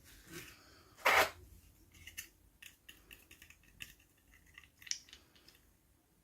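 Toy packaging being opened by hand: one loud, short snip or crinkle about a second in, then a run of small clicks and rustles as the pieces are handled.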